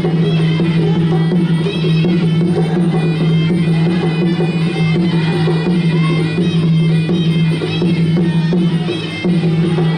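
Traditional Kun Khmer ringside fight music: a wavering high reed melody over drums and a steady low drone, playing continuously.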